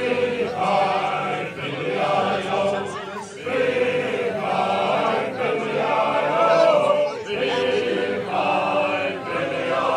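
A group of male voices singing together in chorus, in drawn-out phrases of a couple of seconds each.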